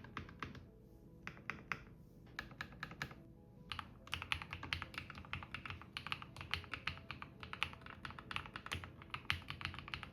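Typing on a CIDOO QK61v2 60% mechanical keyboard with pre-lubed CIDOO Pearl White linear switches and double-shot PBT keycaps. It starts with a few separate keystrokes, then runs into fast continuous typing about four seconds in.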